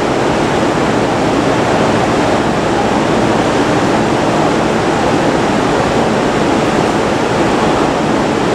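Steady, even rushing noise of an E231-800 commuter train standing at an underground platform with its equipment running.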